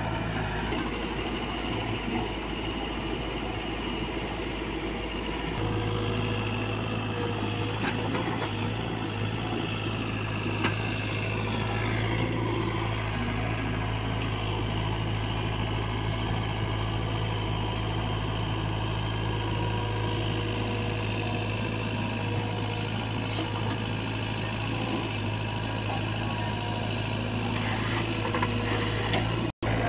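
Diesel engines of an SDLG E680F crawler excavator and a farm tractor running steadily while the excavator digs and loads soil: a continuous low engine hum.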